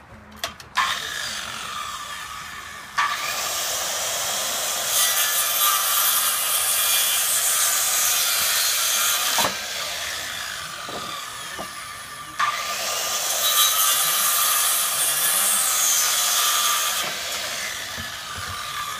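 Handheld circular saw cutting wooden boards. It starts about a second in and is loudest in two long cuts, one from about three seconds and one from about twelve seconds, easing between them and winding down near the end.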